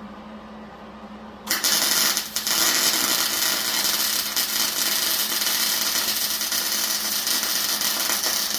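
Welding arc crackling and hissing steadily as a bead is run. It is struck about one and a half seconds in, breaks briefly just after, then runs on unbroken.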